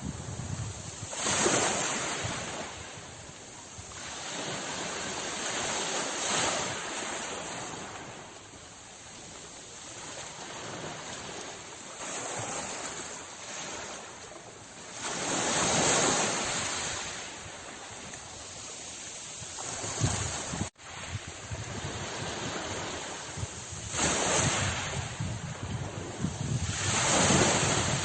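Sea waves breaking on a shore: a steady wash of surf, with louder waves surging in every few seconds. The sound drops out for an instant about two-thirds of the way through.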